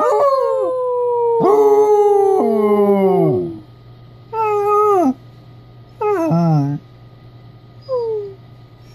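Basset hound howling: one long drawn-out howl that slides down in pitch over about three and a half seconds, then two shorter howls about four and six seconds in, and a faint brief one near the end.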